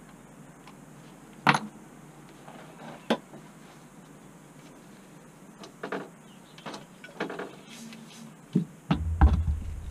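Handling noises at a wooden workbench: a few sharp clicks and knocks of tools and a floor pump being picked up and moved. Near the end comes a louder low thud and rumble as the floor pump is stood on the bench.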